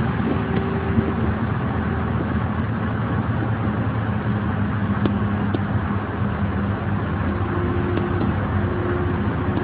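Mercedes-Benz O 405 bus engine running steadily, with a few faint ticks or rattles.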